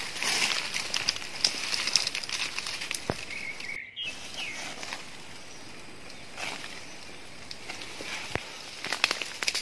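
Leaves and twigs rustling and crackling as a fruit-laden forest branch is pulled and shaken by hand, with a couple of sharp cracks.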